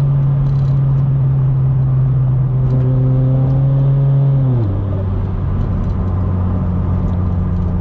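Turbocharged Scion FR-S 2.0-litre flat-four engine droning steadily while driving. About two-thirds of the way through, the engine note drops suddenly to a lower steady pitch.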